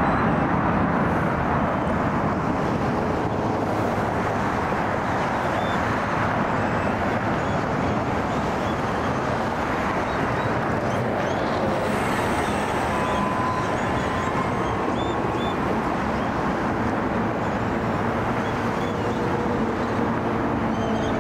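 Steady jet-engine noise from airliners taxiing at low power, an even rushing rumble with a faint thin whine about midway and faint rising tones near the end.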